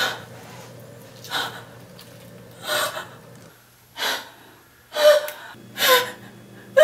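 A woman's sharp gasps, six of them about a second apart, the last two turning into short voiced cries.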